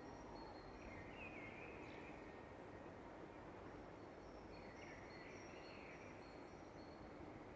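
Faint dawn birdsong: two warbling phrases, about a second in and again around five seconds in, over short thin high notes repeated by another bird, against a steady low background noise.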